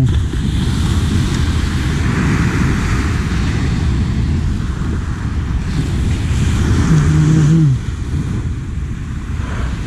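Wind buffeting the microphone over small surf waves washing up the beach, a steady low rumble throughout. About seven seconds in, a person gives a short hum.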